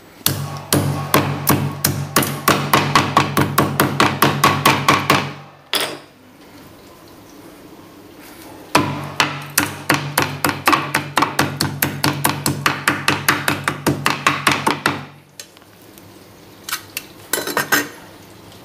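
Hammer pounding Apple earbuds and their cable on a wooden chopping board, with rapid blows about five a second in two long runs, then a few separate strikes near the end.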